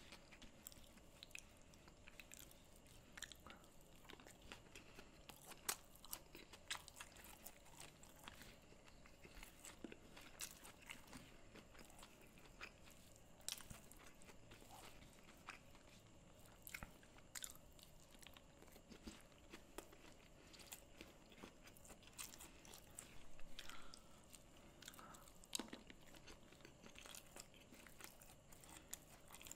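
Faint, close-up eating sounds: crunchy chewing and biting, heard as many short crisp clicks, as rice with cashew curry and dried fish is eaten by hand and mixed on a banana leaf.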